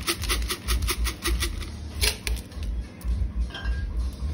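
Quick run of metallic clicks and ice rattling as a cocktail is double-strained from a metal shaker tin through a fine-mesh strainer, about four or five clicks a second for the first two seconds, then fewer.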